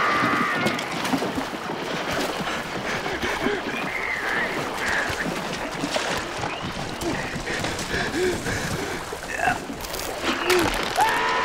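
Movie soundtrack of a shark attack: a man screaming at the start and again near the end, over a steady splashing and churning of sea water around a boat.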